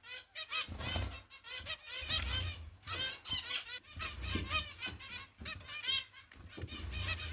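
Zebra finch chicks begging to be fed: rapid runs of short, high, arched calls in repeated bouts, with low dull thumps now and then.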